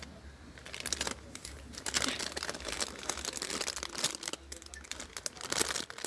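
Clear plastic bags around squishy toys crinkling and rustling as hands handle and push through them on a display rack, a dense run of irregular crackles.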